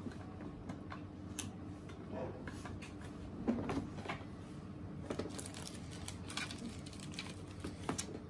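Scattered light clicks and knocks of a screwdriver and screw against the hard plastic body of a Kärcher K4 pressure washer as a screw is driven in and the next one picked up, over a low steady hum.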